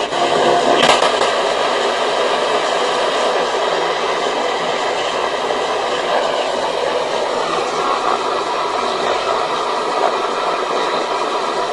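FM radio static: a Sangean 909X portable's steady hiss on a weak, distant FM station at 107.9 MHz, the programme lost in the noise.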